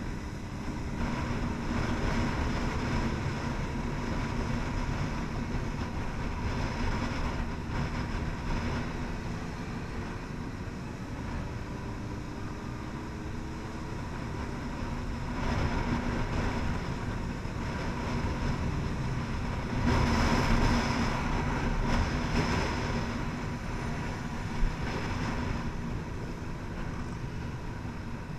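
Motorcycle ride heard from a camera on the bike: wind buffeting the microphone over the sport bike's engine running, its pitch gliding in the first few seconds. The wind and engine grow louder about 15 and 20 seconds in as the bike speeds up.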